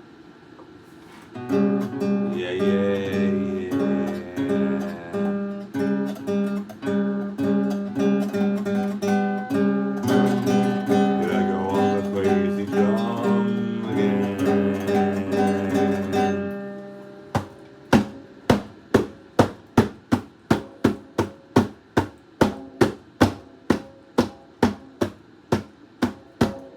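Acoustic guitar played in a blues style: chords and picked notes starting about a second and a half in, then, past the middle, a steady run of sharp muted percussive strokes, about two a second.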